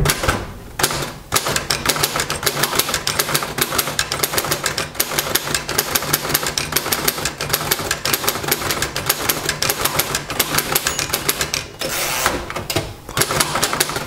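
Manual typing on a 1938 Royal DeLuxe portable typewriter: a fast, continuous run of typebar clacks, several keystrokes a second, with a brief break near the end before the typing picks up again.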